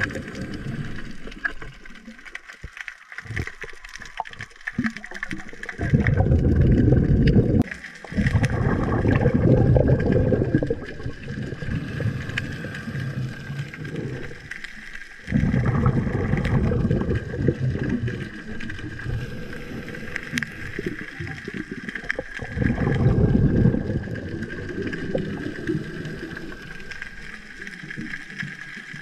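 Water sloshing and gurgling in surges in rough sea, broken off abruptly a couple of times, with a faint steady high whine underneath.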